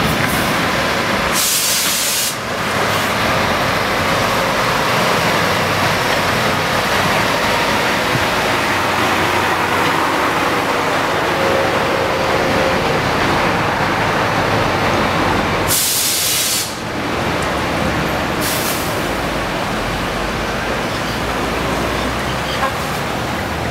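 Scania R 730 truck's V8 engine at full power hauling a 296-tonne, 90-metre train of container trailers slowly past, with a steady heavy rumble of the engine and of many trailer wheels rolling. Two brief sharp hisses of air cut in, one about two seconds in and one about sixteen seconds in.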